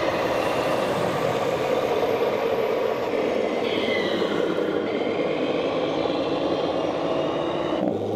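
Radio-controlled scale Volvo truck with a simulated diesel engine sound from its on-board sound module, running steadily amid exhibition-hall noise. Near the end it changes abruptly to a steadier, lower engine hum.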